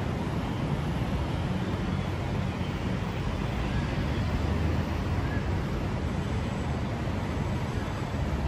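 Bombardier Innovia APM 300 automated people mover running along its concrete guideway, heard from on board: a steady low rumble of its rubber tyres and drive.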